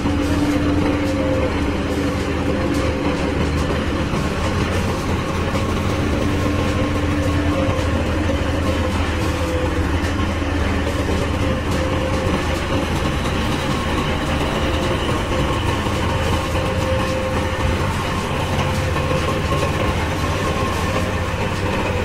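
Three-wheel road roller's diesel engine running steadily as the roller travels slowly over gravel: a constant low drone with a faint steady whine above it.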